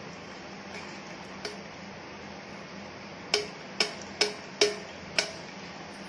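Stainless-steel kitchen utensils (pouring vessel, mesh tea strainer and pot) tapped together five times in quick succession, about two taps a second, each a sharp metallic clink with a short ring, over a steady faint hiss.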